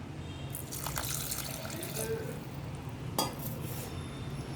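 Water being poured into a pan of seasoned raw chicken, splashing for a couple of seconds, followed by a single sharp clink about three seconds in.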